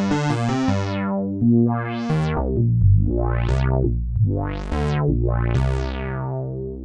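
Crumar Stratus synthesizer playing sustained chords with its two oscillators' sawtooth and square waveforms mixed. The tone brightens and dulls four times as a front-panel knob is turned.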